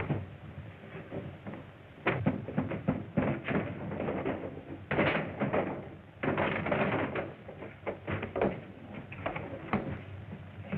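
Screen fistfight: a rapid run of thuds, smacks and crashes as men are thrown against a wooden counter and desk, starting about two seconds in, on a muffled old optical film soundtrack with steady hiss.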